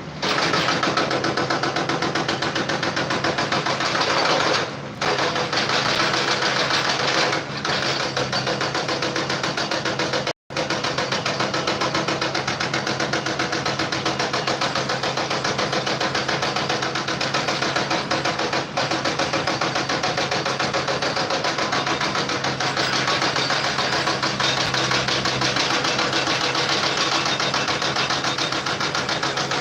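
A machine running steadily with a fast, even chatter, broken off briefly a few times.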